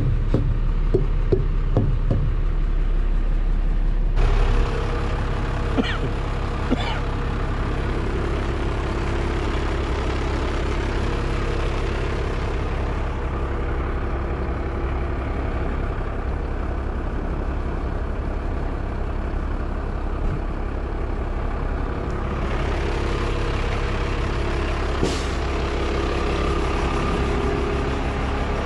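Heavy truck's diesel engine idling with a steady hum. A louder low rumble in the first few seconds cuts off abruptly about four seconds in.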